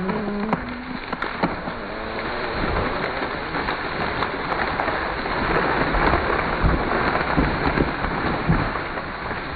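Big ash tree falling. Its trunk cracks and snaps at the hinge at the start, then the crown's limbs and leaves rush down through the air and crash onto the ground in a long, loud crash with a few heavy thumps, loudest about six to eight seconds in.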